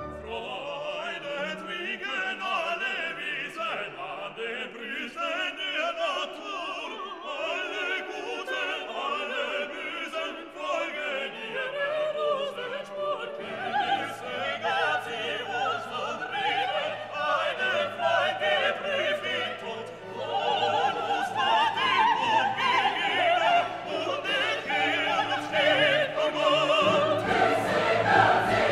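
Background classical music: operatic singing over an orchestra, with a choir, growing louder about two-thirds of the way through.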